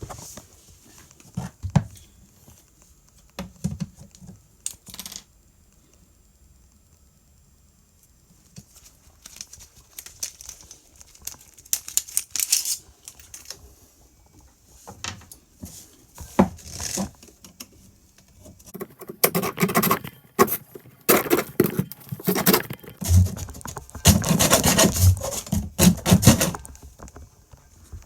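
Scattered knocks and handling noises, then from about 19 seconds a run of loud, rough scraping strokes, like wood being rasped or sawn by hand.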